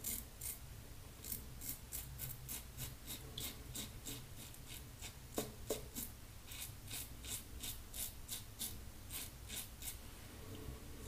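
Double-edge safety razor scraping through stubble on a lathered face in short strokes: a faint, crisp rasp about two or three times a second. Two soft knocks about halfway through.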